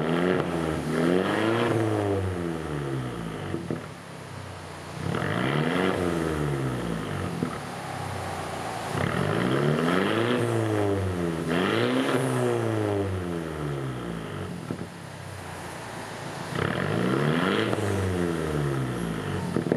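Mercedes-Benz A250's 2.0-litre turbocharged four-cylinder, breathing through an aftermarket full exhaust system, free-revved five times from idle while standing still. Each time the pitch climbs quickly and then drops back to idle.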